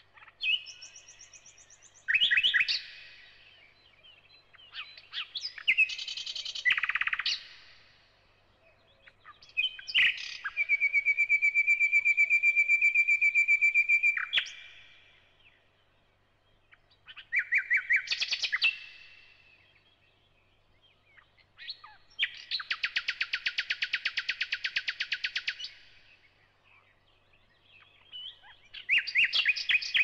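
Thrush nightingale singing in separate phrases every few seconds, mixing clear whistles with fast clicking rattles. Two of the phrases are long, even rattling trills of about four seconds each.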